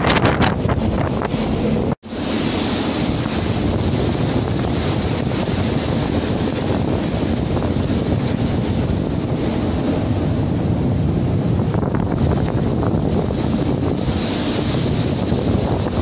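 Strong wind buffeting the microphone over the steady rush of storm waves breaking around a ship's bow in heavy seas. The sound cuts out for an instant about two seconds in.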